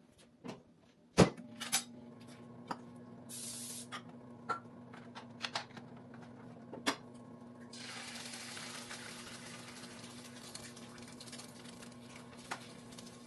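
A sharp clunk about a second in, after which a steady motor hum sets in, like a stove vent fan. A short hiss of cooking spray comes around three seconds in, and from about eight seconds on eggs sizzle in a hot frying pan.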